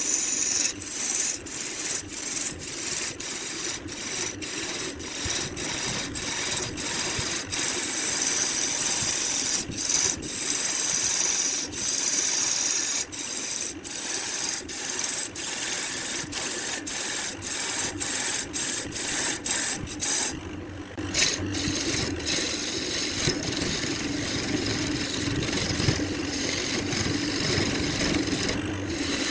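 A hand tool scraping across wood in quick repeated strokes, about two a second. Past the middle the strokes run together into a steadier scraping.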